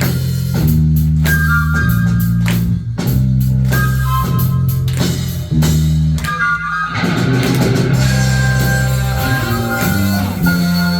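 Live rock band playing an instrumental passage with drum kit, guitar and sustained low chords. The chords stop and start in short blocks for the first half, then the band opens into a fuller, continuous sound about seven seconds in.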